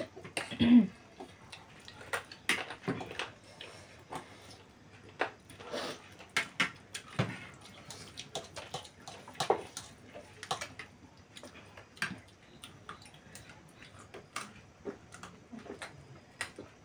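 People eating instant noodles: irregular slurps and chewing, with forks clicking and scraping on plates.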